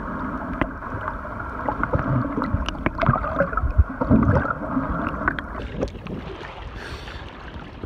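Muffled underwater rumble and bubbling from snorkelers' fins kicking close by, with a few heavier thumps about four seconds in. Near the end the microphone breaks the surface and the sound opens up into sloshing waves.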